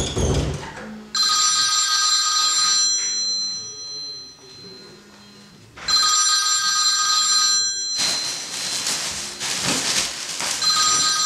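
Phone ringing with a high, steady electronic ring, sounding three times about two seconds each, a few seconds apart. A loud low thump comes right at the start, and a loud hiss fills the gap between the second and third rings.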